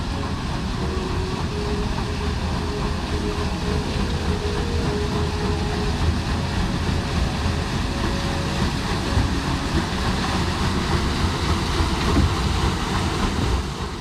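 Steady rumbling of a small ride boat moving along its concrete water channel, with water running around the hull.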